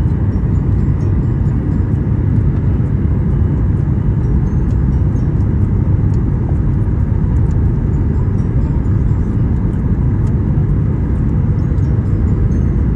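Airliner cabin noise: a loud, steady low rumble of the jet engines and airflow, heard from inside the passenger cabin.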